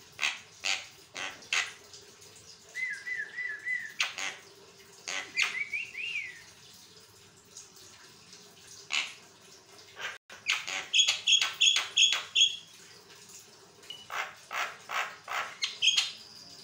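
Javan myna (jalak kebo) calling in a continuous, varied chatter of harsh rasping notes mixed with whistled chirps. A quick run of about six clear whistled notes comes a little past the middle, followed by more harsh notes.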